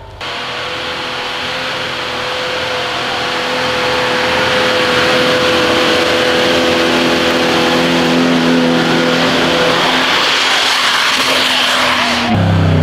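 Off-road 4x4 engine running hard at high revs, with a loud rushing noise over it and a pitch that creeps slowly upward as the loudness builds over the first few seconds. Near the end it changes abruptly to a lower engine note.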